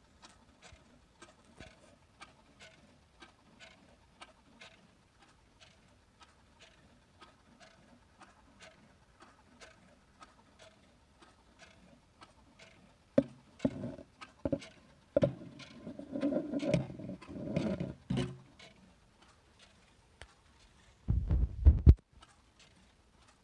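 Battery-driven quartz movement of a motorcycle-shaped novelty alarm clock ticking faintly and steadily as its second hand steps round. Louder knocks and rustling come about halfway through, and a short low thump near the end.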